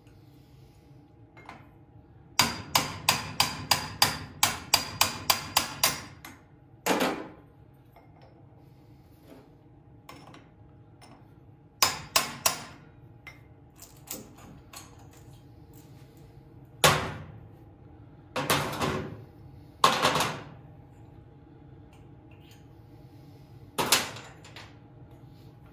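Hammer striking a dull chisel set against the tabs of a 1975 Briggs & Stratton 5 HP engine's starter clutch, knocking the clutch loose so it can be unscrewed. The blows are sharp metal-on-metal impacts: a quick run of about a dozen, roughly three a second, then single blows and a pair spaced a few seconds apart.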